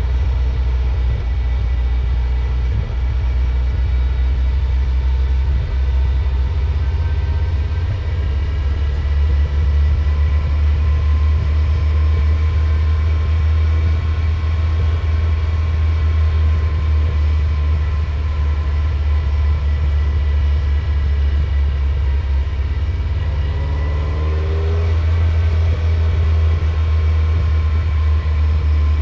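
Ferrari 308's V8 engine running steadily with a deep drone, changing pitch briefly near the end. The owner reports a misfire and loss of power in this car.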